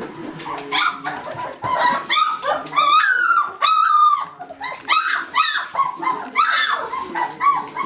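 Three-week-old puppies whining and yelping: a run of high-pitched calls, with a couple of longer drawn-out whines in the middle.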